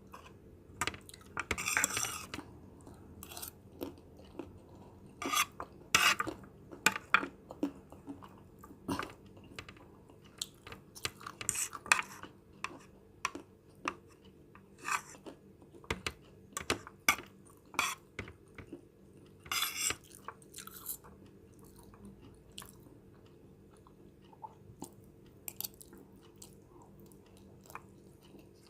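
A person eating a plate of fried noodles: chewing, with irregular sharp clicks and clinks of cutlery against the plate, busiest in the first two-thirds and sparser near the end.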